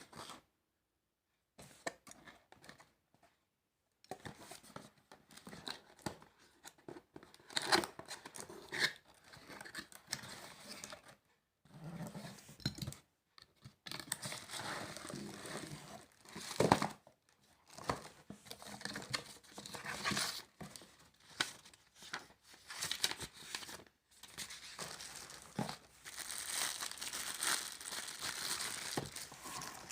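Packaging being crumpled and torn by hand, in irregular rustling bursts with short pauses.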